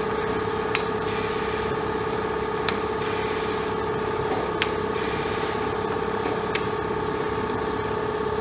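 Special Adhesive Process Machine MkIII F1 running in a continuous production run: a steady mechanical hum with a sharp click about every two seconds.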